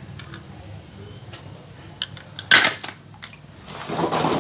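A small die-cast toy car going into a tub of water: one sharp, loud splash about two and a half seconds in, then water sloshing near the end.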